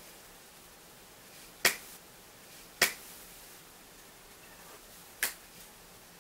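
Three short, sharp clicks over faint room hiss, the first two about a second apart and the third about two and a half seconds later.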